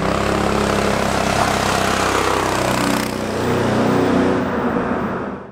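Off-road go-kart's Predator 212 single-cylinder four-stroke engine, fitted with a performance exhaust, running steadily under way with a rush of wind and road noise. It swells briefly past the middle and fades out near the end.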